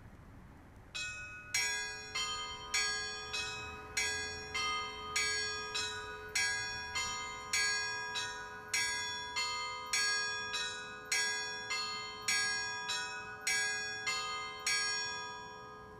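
Several bells of different pitches struck one after another at a steady pace of about two strikes a second, each ringing on under the next. The strikes start about a second in and stop near the end, leaving the ringing to fade.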